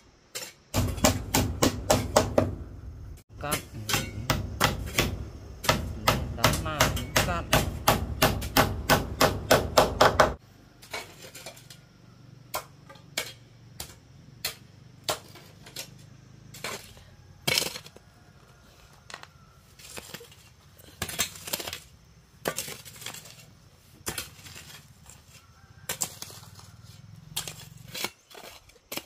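Hammering: for about ten seconds, quick, evenly spaced knocks over a steady low hum, then slower, irregular hammer blows.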